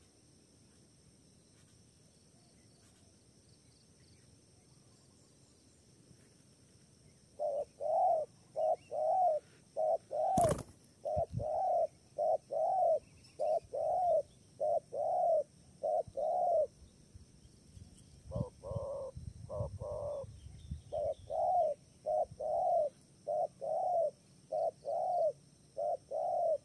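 Spotted dove cooing: a long run of short, evenly spaced coos, about two a second, starting about seven seconds in. A sharp knock comes about ten seconds in, and a low rumble sits under a few coos near the middle of the run.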